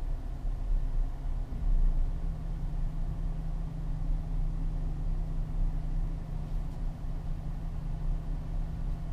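Car engine idling, a steady low rumble heard inside the cabin, with a steady low hum that comes in about a second and a half in.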